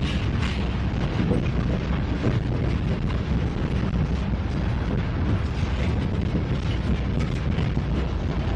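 Freight cars rolling past at close range: a steady low rumble of steel wheels on the rails, with scattered clicks and knocks.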